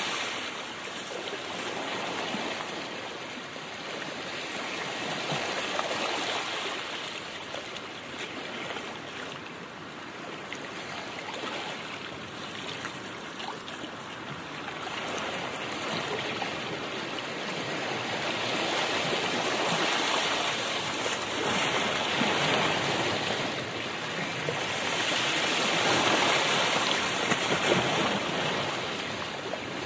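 Steady rushing noise of a car driving, tyre and wind noise, rising and easing every several seconds.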